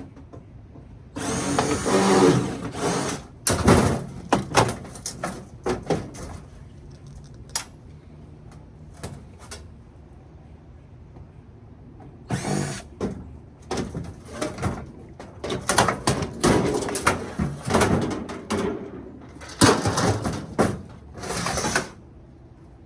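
Power drill or driver run in short bursts while taking apart a microwave oven, most likely backing out the screws of its sheet-metal casing. Sharp knocks and clicks of metal parts come between the bursts.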